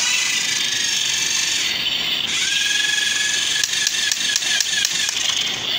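Small electric motor in a ride-on toy car's white plastic gearbox running, with a steady high whine that stops briefly about two seconds in and resumes a little lower, and a run of rapid gear ticks in the second half.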